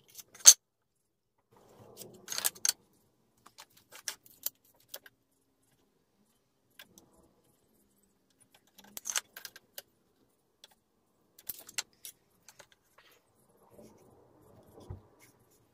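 Hand tools being handled on a wooden workbench: scattered sharp clicks and light metallic clatter in small clusters, with a soft thump near the end.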